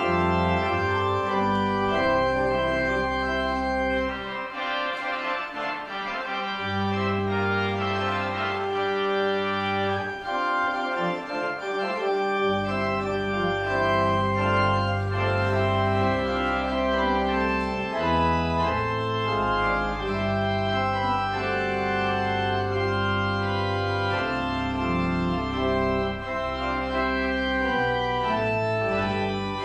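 Church organ playing slow, sustained chords; the lowest bass notes drop out twice for a couple of seconds.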